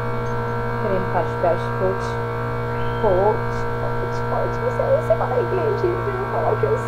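Electric fan motor humming steadily and loudly. Wavering pitched sounds come and go over the hum from about a second in, with a few light clicks.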